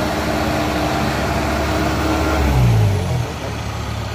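Kubota DC70 combine harvester's diesel engine running. About two and a half seconds in it surges louder, then its revs fall away to a lower, quieter steady note.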